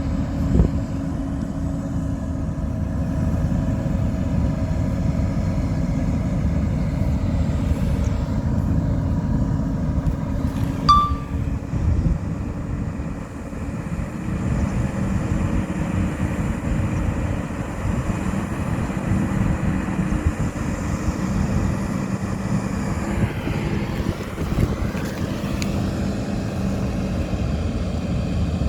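Old Komatsu bulldozer's diesel engine working, a steady drone whose pitch shifts as the load changes. A brief high squeak comes about eleven seconds in.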